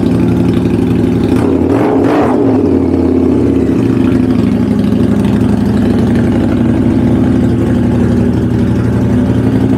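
Harley-Davidson Night Rod's V-twin engine idling loud, with a short blip of the throttle about two seconds in.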